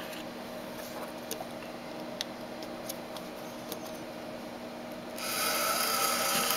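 A few faint clicks of jumper wires being moved on a breadboard, then about five seconds in a small DC motor starts and runs steadily with a faint whine as the H-bridge switches on.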